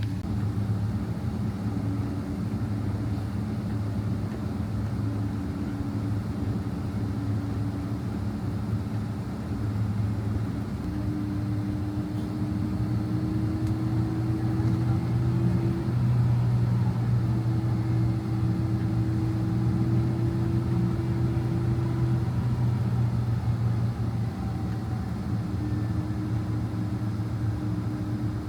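Boeing 767-300 cabin noise while taxiing: the engines run at low power as a steady low hum, with a fainter higher tone that drifts slightly in pitch and fades in and out.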